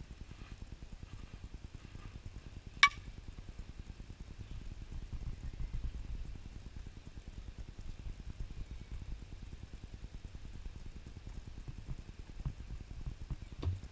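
A softball bat hits a pitched ball once, a single sharp crack about three seconds in, over a steady low rumble.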